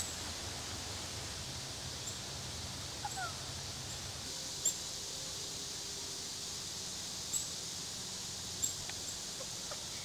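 Small wild songbirds giving brief, high-pitched chirps every second or two, with a pair of short falling notes about three seconds in, over a steady outdoor hiss.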